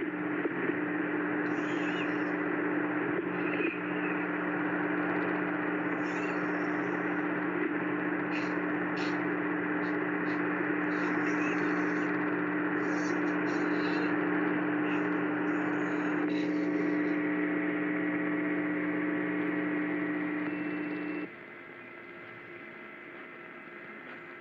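Broadcast audio carrying a loud, steady electrical hum over static hiss with scattered crackles, heard during a failed Emergency Alert System test. About 21 seconds in the hum cuts off suddenly, leaving quieter hiss and faint thin tones.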